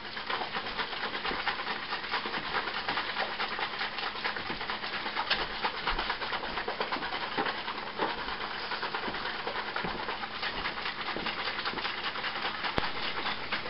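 Mead must (honey water with orange and yeast) sloshing and splashing inside a capped plastic jug that is shaken hard and without pause, aerating the must so the yeast gets air.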